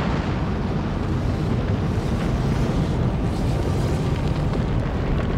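A deep, steady rumble: a sound-design effect for a comet nucleus hurtling through space.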